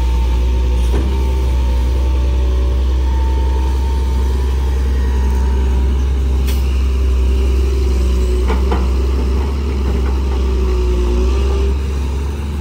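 Sunward SWE210 hydraulic excavator working under load, digging and slewing to load a dump truck: the diesel engine runs with a deep steady hum while the hydraulic pump howls, its whine shifting up and down in pitch. A few sharp knocks come about one, six and a half and nine seconds in.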